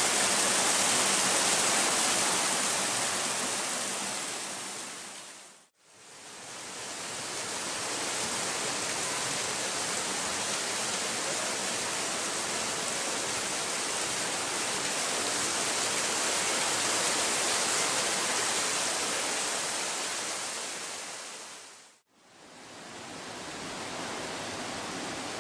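Steady rush of a mountain stream tumbling through a narrow rock gorge. It fades out and back in twice, about six seconds in and again later on.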